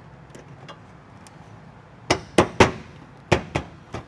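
Plastic front bumper cover of a Chrysler 300 being pressed and knocked into place by hand at the fender seam. Five sharp knocks start about halfway in: three in quick succession, then two.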